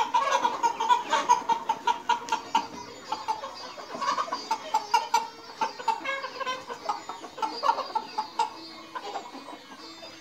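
A flock of chickens clucking and calling, many short overlapping calls, busiest and loudest in the first couple of seconds and thinning toward the end.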